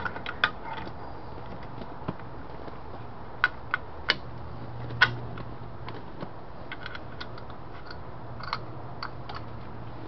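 Irregular small metallic clicks and taps as the chrome headlight switch knob of a 1964 Valiant is worked onto its shaft against the dash bezel, over a low steady hum.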